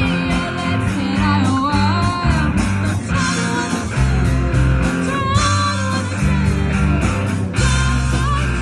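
A live rock band playing: electric guitars, bass guitar and drum kit, with a woman singing the lead vocal.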